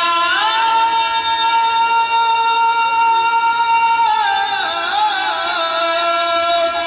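An elderly man singing a bhajan, holding one long melismatic note: he slides up into it, sustains it for about four seconds, then lets it waver and bend through several pitches near the end.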